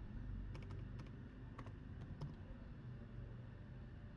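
Faint, scattered keystrokes on a computer keyboard, a few separate clicks about every half second, over a low steady hum.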